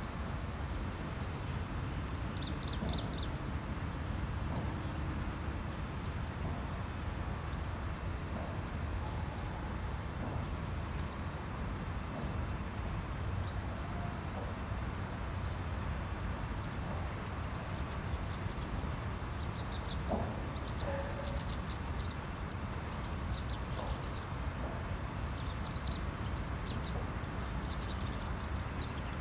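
Steady low background rumble, with a few short, high bird chirps about three seconds in and scattered through the last ten seconds.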